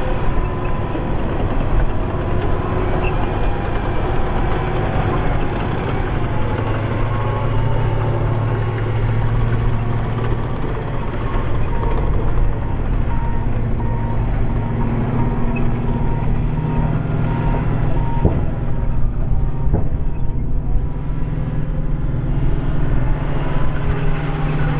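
Heavy tracked armoured vehicle, the M1150 Assault Breacher Vehicle on an M1 Abrams chassis, running and moving: a steady low engine and track drone with thin whining tones above it.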